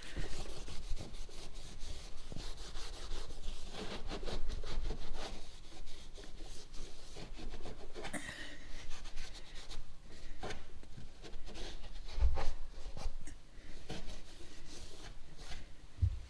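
A cloth wiping and rubbing the truck's body surface with detailer, in quick irregular strokes. There is a dull bump about twelve seconds in and another near the end.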